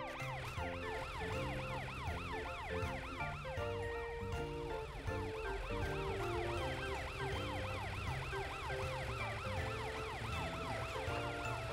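Cartoon police car siren in a fast yelp, sweeping up and down in pitch several times a second, over background music with held low notes.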